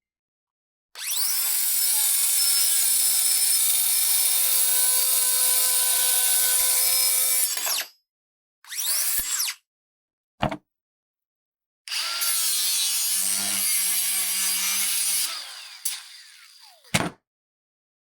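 A power cutting tool cutting off the excess bar of a hanging file folder rack. There is one long steady cut of about seven seconds, a short burst, a click, then a second cut of about three seconds, ending as the motor winds down with a falling whine.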